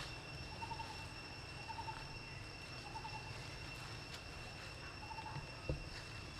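Outdoor natural ambience: a steady high-pitched insect drone, a short pulsed call repeating about once a second, and a low rumble underneath, with a single sharp knock near the end.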